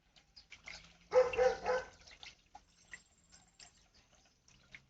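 A dog barking three times in quick succession, about a second in, with scattered faint clicks around it.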